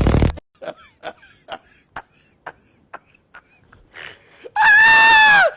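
A burst of noise cuts off just after the start. A person's voice follows with a run of short, sharp vocal sounds, about three a second, then a loud, high, drawn-out cry near the end that falls in pitch as it stops.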